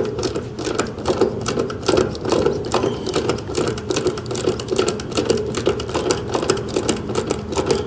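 Ratchet service wrench clicking rapidly and unevenly as it turns the suction-line service valve stem down toward front seat. Beneath it runs the steady hum of the air-conditioner condensing unit, still running during the pump-down.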